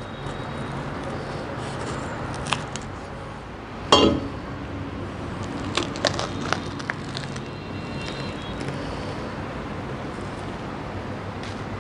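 Spiky husk of a Ri6 durian being cut and pried apart by hand: scattered cracks and clicks as the rind splits along its seams, with one louder knock about four seconds in.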